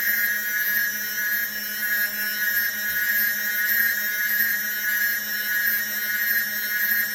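CNC machine spindle and cutter cutting quartz: a steady high-pitched whine over a grinding hiss.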